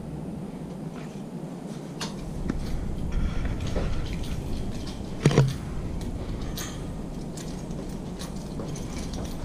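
Footsteps and handling noise from a handheld camera carried through the rooms, with scattered light knocks and one louder thump a little past five seconds in.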